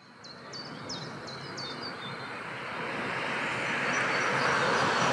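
A tram approaching along the track, its running noise growing steadily louder. In the first two seconds a bird calls a quick run of about five high notes.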